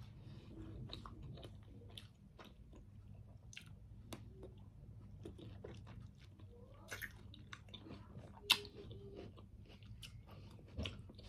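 A person chewing and biting food close to the microphone, with soft crunches and light clicks over a faint low hum. One sharper click comes past the middle.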